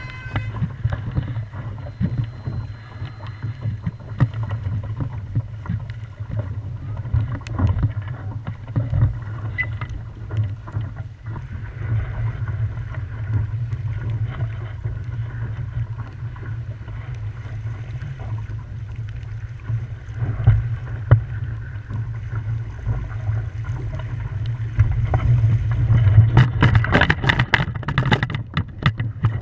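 Wind buffeting the microphone on a sailing dinghy under way, with a rumbling low gust noise and water rushing against the hull. Near the end the sound grows louder, with a quick run of sharp splashes and knocks.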